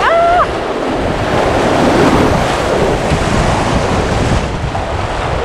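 Rushing whitewater of a river riffle splashing around the bow of an inflatable kayak, close to the microphone, with wind buffeting the microphone. A brief, wavering voice call sounds right at the start.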